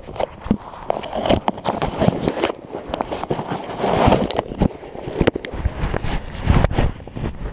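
Jacket fabric rubbing and scraping against an action camera's housing as it is handled, with many irregular clicks and knocks.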